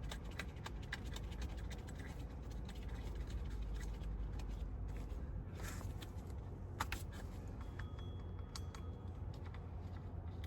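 Hand work on an engine's front end, fitting the water pump pulley bolts: scattered light clicks and scrapes, a couple of sharper clicks about six and seven seconds in, over a steady low hum.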